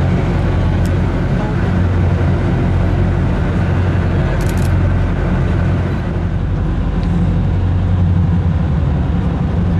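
Heavy construction machinery's engine running steadily with a low, even hum, and a couple of faint clicks.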